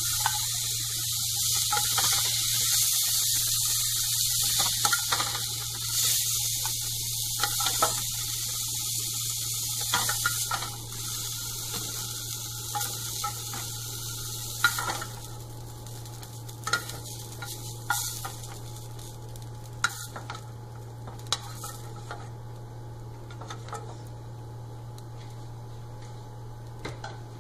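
Potatoes, peas and mushrooms sizzling in hot oil in a non-stick kadai while a spatula scrapes and scoops them out, knocking against the pan. The sizzle fades about halfway through, once the pan is nearly empty, leaving only occasional scrapes and taps.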